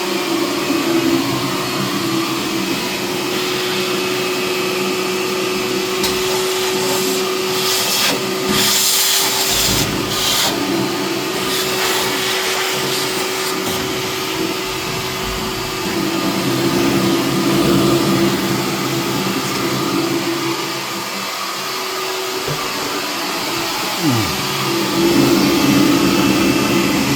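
Vacuum cleaner running, its motor whining steadily as the nozzle works inside a furnace. The pitch and loudness shift as the suction changes, with a burst of hissing about eight to ten seconds in.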